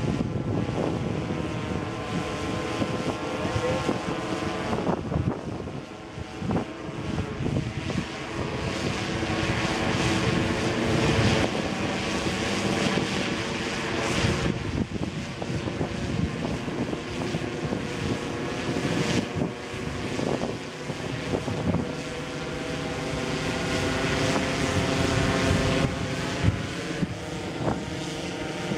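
Porter OctaQuadPlane model aircraft flying overhead, its propeller droning steadily with the pitch drifting slightly up and down. Gusts of wind on the microphone come and go over it.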